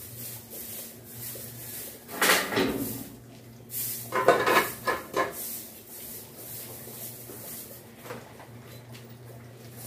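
A metal pail clanking against a metal workbench as it is handled and set down, in two bursts of knocks with some ringing in the first half. A low steady hum runs underneath.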